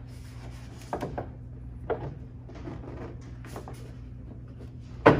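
Light clacks and scrapes of a metal hood strut bracket being slipped over a nut and into place, with a louder knock near the end, over a steady low hum.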